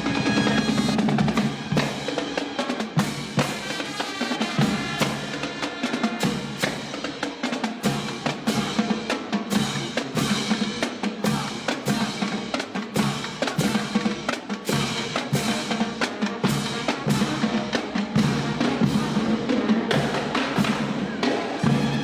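Drums playing a steady, driving beat with snare and bass drum, with drum rolls.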